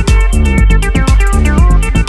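Electronic dance music with a steady, fast beat over a deep bass line.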